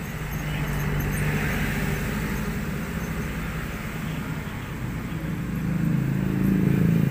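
A vehicle engine running steadily amid traffic noise, with a low hum that grows louder about six seconds in.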